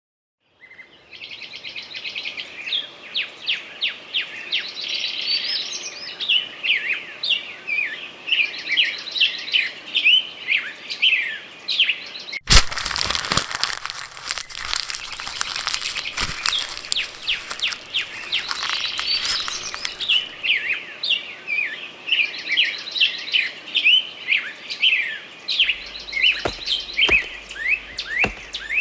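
A chorus of songbirds chirping and calling, many short quick rising and falling notes overlapping. About twelve seconds in there is a sharp click, followed by several seconds of hiss under the birdsong.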